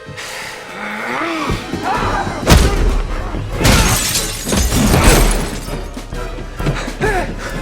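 Fight sound effects over dramatic film score: heavy hits and crashes with shattering glass, the loudest blows landing about two and a half, three and a half and five seconds in, between sweeping whooshes.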